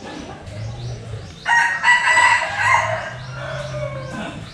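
A rooster crowing once, a drawn-out call of about two and a half seconds that starts abruptly about a second and a half in and trails off near the end.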